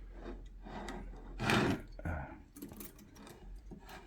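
Handling noise from manual typewriters being moved and turned over on a table: small metal clicks and knocks with rubbing against the surface, and a louder rub about a second and a half in.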